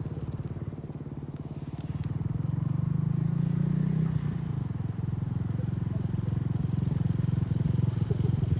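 An engine running with a low, steady rumble that grows louder about two seconds in.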